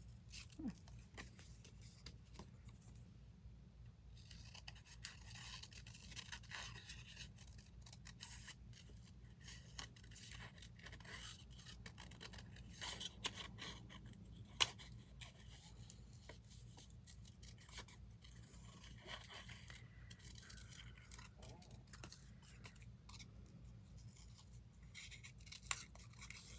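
Scissors cutting paper: quiet, scratchy snipping and paper rustling with scattered sharp clicks, one louder click about halfway through. A low steady hum runs underneath.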